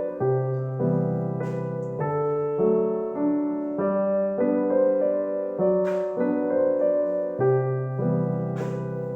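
Background music: a slow piano melody with held chords.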